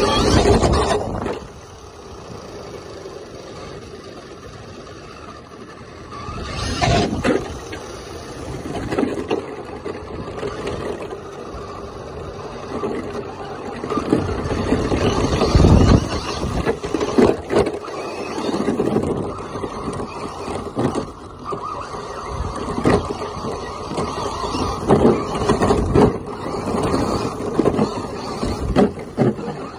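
Traxxas Stampede RC monster truck driving, heard from a camera on its own hood: its motor and tyres running over pavement and then grass, with loud surges and sharp knocks as the body bounces over bumps several times.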